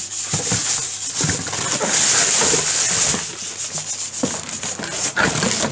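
Plastic packaging bag rustling and crinkling as it is handled close to the microphone, with many small crackles.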